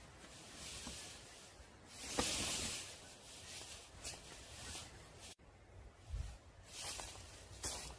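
Intermittent rustling and scraping, loudest about two seconds in, with a soft low thump about six seconds in.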